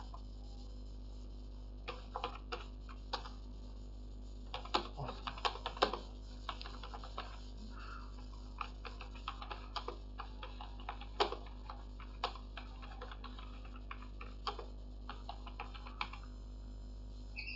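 Typing on a computer keyboard: irregular key clicks that start about two seconds in, over a steady low hum.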